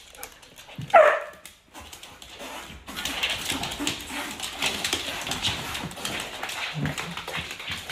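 A husky gives one short, loud bark with a falling pitch about a second in. From about three seconds in there is a steady rustling, scuffling noise with small clicks.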